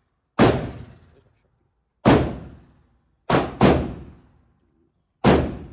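Five gunshots at an irregular pace, each a sharp crack that echoes away over about a second, with two coming close together near the middle.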